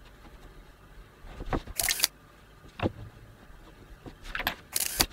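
Table knife scraping tomato paste across slices of toast bread in short strokes, loudest in two brief bursts near two seconds and near the end, with a light knock or two on the wooden cutting board.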